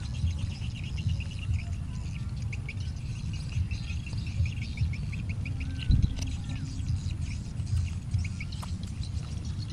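Rapid, even chirping, several short high pulses a second, over a steady low rumble, with a single knock about six seconds in.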